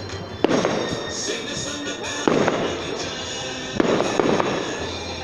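Aerial firework shells bursting: three sharp bangs about a second and a half apart, each trailing off in an echo, over music playing in the background.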